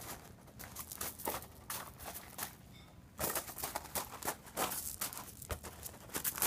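Crunching footsteps and a soccer ball scuffing on loose gravel, an irregular run of short scrapes and crunches as a child dribbles.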